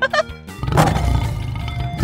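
A lion roaring, starting about half a second in and running on past the end, over light background music.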